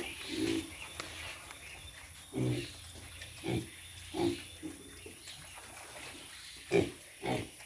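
Pigs grunting: a series of short, separate grunts about every second, the loudest near the end.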